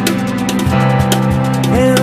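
Live pop-rock band playing an instrumental passage on strummed acoustic guitar, electric bass and keyboard, with a steady beat; a voice comes in singing near the end.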